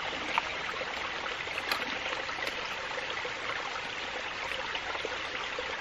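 Small mountain creek flowing: a steady rushing trickle of water, with a few faint ticks over it.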